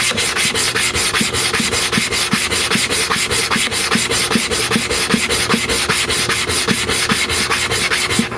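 Hair-clipper comb blade scraped rapidly back and forth by hand on a sharpening stone coated with oil and sharpening powder, an even gritty rubbing of several strokes a second. The strokes stop just at the end.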